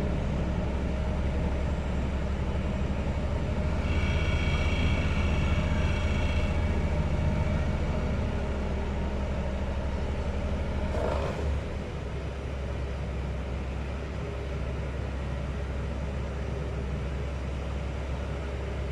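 Heavy sheet-pile driving machinery running with a steady, deep drone, without separate hammer blows. A higher whine rises over it for a few seconds in the first third. Just past halfway there is a brief knock, after which the drone eases slightly.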